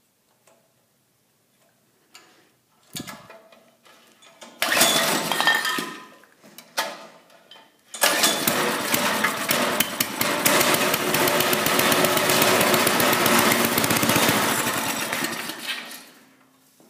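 5 hp Briggs & Stratton single-cylinder flathead go-kart engine, fitted with a Tecumseh carburettor, being started. A short burst of firing about five seconds in, then it catches about eight seconds in and runs with rapid firing pulses for about eight seconds before fading out.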